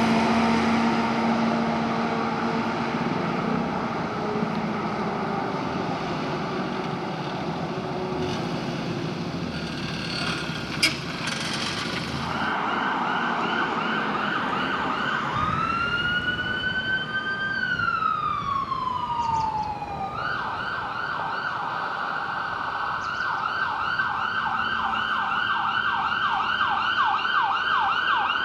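Traffic rumble, loudest at the start, with a single sharp knock about eleven seconds in. Then an emergency vehicle's electronic siren comes in on a fast yelp. It swings into one slow wail that rises and then falls, and goes back to the fast yelp.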